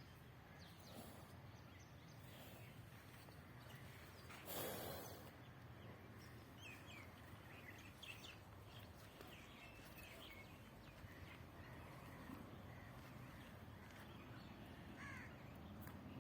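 Faint bird calls scattered over a low steady outdoor background, with a brief rush of noise about four and a half seconds in.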